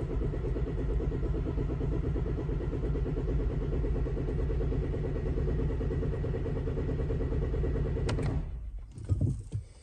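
Range Rover Evoque engine cranking over on the starter motor at a steady, even pace for about eight seconds without firing, then stopping. It will not catch because the fuel system is airlocked after a fuel filter change.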